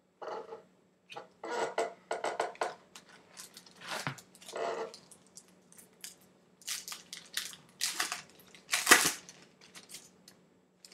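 Crinkling and tearing of a foil trading-card pack wrapper, in a string of short, irregular bursts, the loudest a little before the end.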